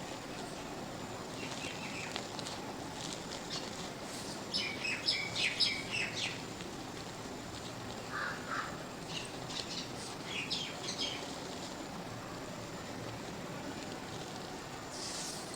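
Dry mud crumbling with a steady low crackle, while birds chirp in short high-pitched runs, loudest about five seconds in and again around ten seconds.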